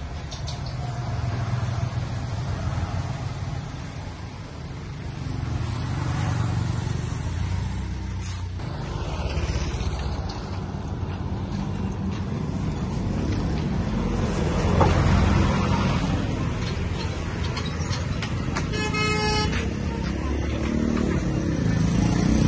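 Street traffic: vehicle and motorbike engines running steadily, with a horn honking briefly about nineteen seconds in.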